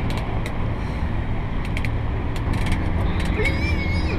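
Catamaran's engine idling with a steady low rumble while the boat holds position on the water, with a few faint ticks over it.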